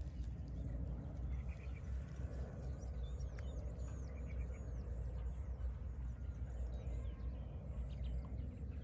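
Steady wind rumble on the microphone, with small birds chirping a few times around the middle.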